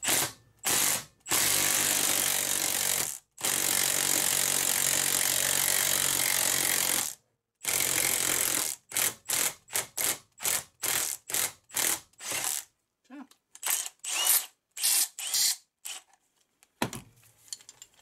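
Cordless Milwaukee impact wrench hammering a 14 mm socket on a gear puller's screw, pulling the belt pulley off a 1970 Briggs & Stratton 2 hp engine's shaft. It runs in a few short trigger pulls, then two long runs of about two and four seconds, then a string of short bursts about two a second. Lighter metal clicks follow near the end.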